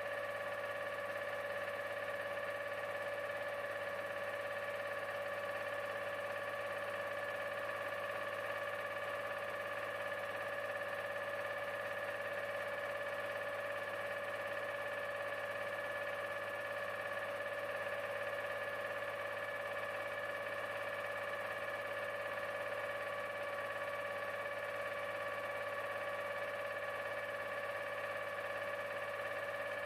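P14 hydraulic pump on a coiled tubing unit's wet kit running under pressure while its neutral position is set: a constant whine made of several steady high tones over a mechanical hum.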